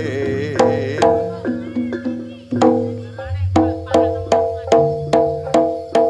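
Live Javanese gamelan music for a Bantengan dance: struck pitched metal notes and drum strokes, loose at first, then settling into a steady beat of about two or three strokes a second from about halfway in.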